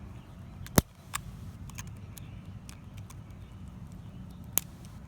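Plastic parts of a screw-together garden hose coupling being handled and pulled apart: a sharp click about a second in, a few fainter ticks, and another sharp click near the end, over a steady low rumble.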